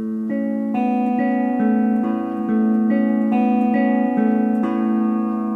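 Carvin SH445 semi-hollow electric guitar with both Fralin Pure PAF humbuckers in parallel, played clean. A low note rings on while single notes are picked above it, a new one about every 0.4 seconds, each left to ring into a long, full sustain. Picked up by an iPad's built-in microphone.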